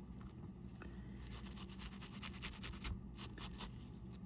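Short, quick scrubbing strokes on a G-Shock watch's resin case as caked dirt and gunk are cleaned off, starting about a second in, with a brief pause near the end.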